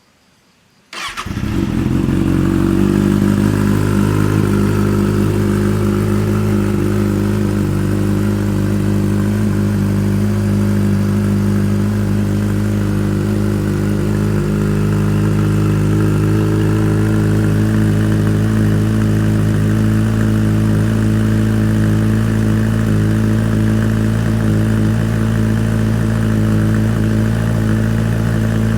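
Kawasaki ZX-6R inline-four engine, breathing through an Arrow Pro-Race exhaust with its dB killer fitted, cold-started on the electric starter about a second in. It catches at once and settles into a steady idle.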